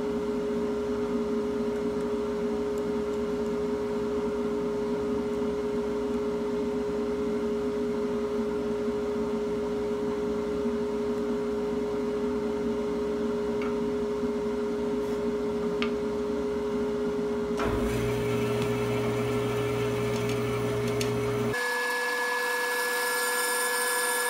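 Steady electric hum of running workshop machinery, a band saw or its dust extraction. The hum's tone changes abruptly twice in the later part.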